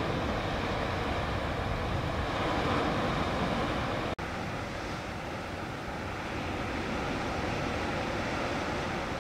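Steady outdoor wind noise rumbling on the microphone, with a rush of sea in the background. It cuts out for an instant about four seconds in.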